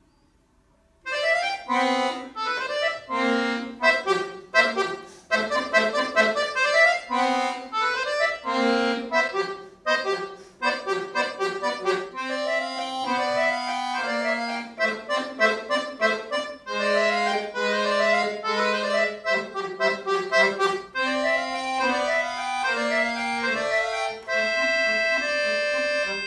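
Chromatic button accordion played solo, starting about a second in: short, detached chords and notes with quick gaps between them in the first half, then longer held notes and runs in the second half.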